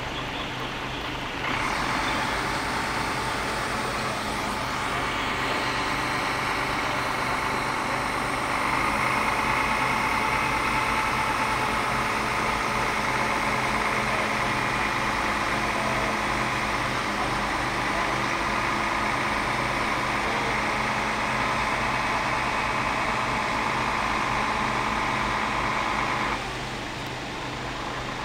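Engine of an Iveco road-rail fire truck running steadily. A louder, steady, higher-pitched layer comes in abruptly about a second and a half in and cuts off a couple of seconds before the end.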